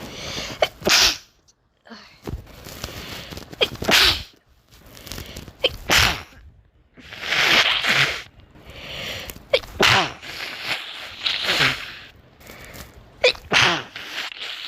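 A person sneezing over and over, sharp noisy sneezes coming every second or two.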